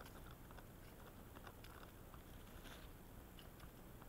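Faint crackle and squish of bare feet stepping on wet leaf litter and twigs: scattered soft irregular clicks over a low rumble.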